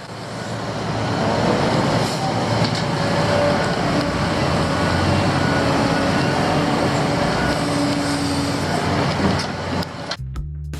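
Heavy diesel construction machinery running: an excavator loading dirt into a dump truck, a steady engine drone with faint held whining tones that builds over the first second or two. Music cuts in shortly before the end.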